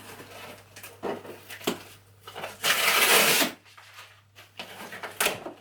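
A cardboard shipping box being forced open by hand: scattered rustles and knocks, then a loud tearing of the packaging lasting about a second, midway through.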